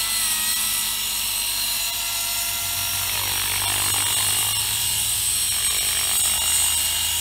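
Large radio-controlled T700 helicopter running on the ground, its rotor and drive making a steady high hum. It lifts off near the end.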